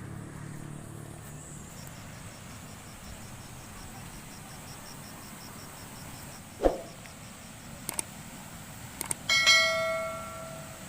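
Steady rush of heavy rain and overflowing water, with a sharp knock about two-thirds of the way through and, near the end, a loud bell-like metallic ring that dies away over a second or so.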